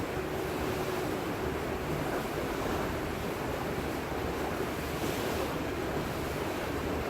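Steady rushing of wind on the microphone and water along the hull of a moving tour boat.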